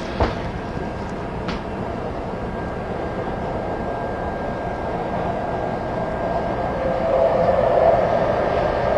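Metro train running, heard from inside the car: a steady rumble with a faint high steady whine. There is a click just after the start, and the rumble grows louder in the last two seconds.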